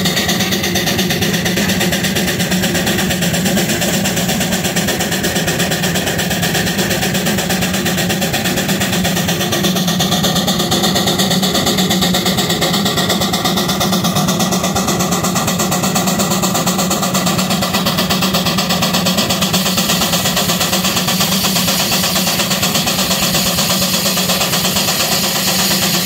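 Steam traction engine working hard on the belt, its exhaust chuffing fast and evenly up the stack.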